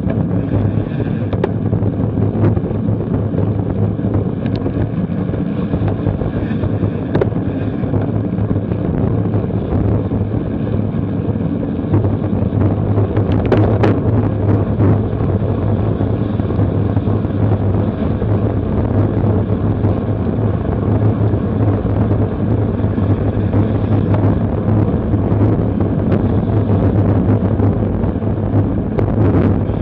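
Steady wind rush buffeting the microphone of a camera mounted on a road bicycle riding at about 25 mph, with a few faint clicks.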